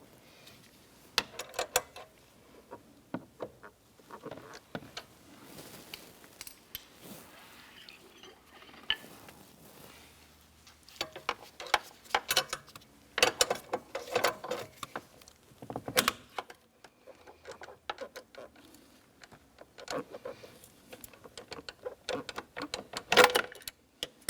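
Scattered metallic clicks and clanks of hand tools working a door hinge spring compressor on a truck door, coming in irregular clusters of quick knocks.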